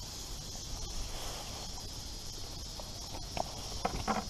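A hooked catfish being swung up through the bank grass, with a few short rustles and knocks about three seconds in as it lands and flops on the ground. A steady high hiss runs behind.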